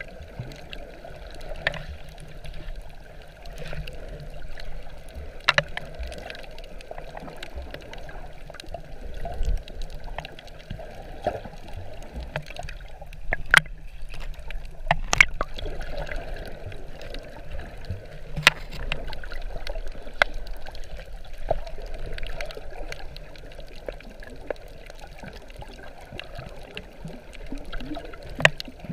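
Muffled underwater wash of moving water, heard through a GoPro's waterproof housing while snorkeling over a reef, with several sharp clicks scattered through it.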